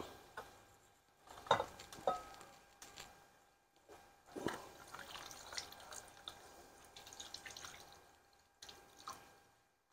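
A ring-pull lid on a can of pineapple is opened with two sharp metallic clicks about a second and a half and two seconds in. After that, pineapple juice pours and drips from the can onto raw chicken in a glass bowl for about four seconds.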